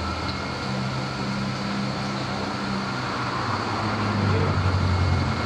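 A machine running with a steady low drone and an even hiss; the drone grows a little louder about four seconds in.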